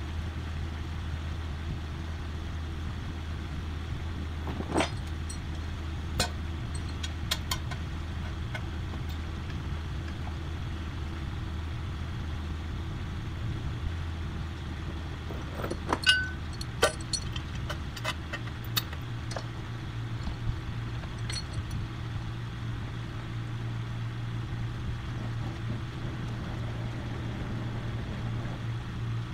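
Vehicle engine idling steadily, its pitch stepping up about halfway through, with scattered metallic clinks and clanks of chain and winch line being rigged between the vehicles.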